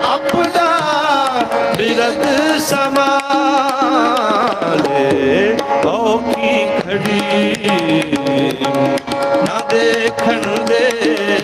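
Sikh kirtan: harmonium and tabla accompanying a male voice singing a devotional hymn. The sung line bends and ornaments most plainly in the first half, over held harmonium notes and a busy run of tabla strokes.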